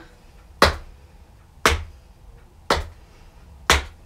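Tap shoes' metal taps striking a hard floor in four sharp single taps, evenly spaced about one a second.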